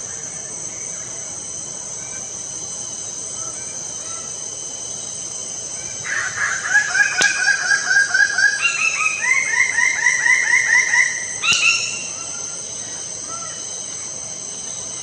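Lesser bird of paradise giving a loud run of rapid repeated calls, about four a second for some five seconds, the notes stepping up in pitch partway through, over a steady high insect drone.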